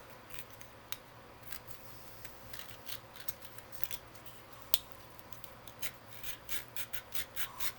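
Sanding stick rubbing across a plastic model part in short scratchy strokes, smoothing off leftover sprue nubs. The strokes come closer together, about two a second, in the last few seconds.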